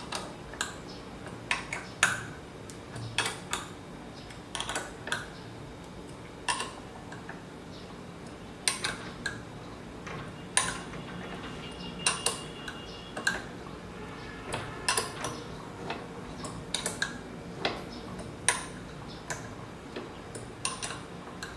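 Irregular sharp metallic clicks and clinks, about one or two a second, from a hand tool working the bolts of a linear-rail carriage block as they are tightened crosswise, a little at a time.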